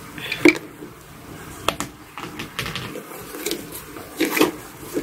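Hands rummaging inside a packed Kate Spade nylon crossbody bag as its contents are taken out: soft rustling of the nylon and the items, with a few sharp clicks and knocks scattered through.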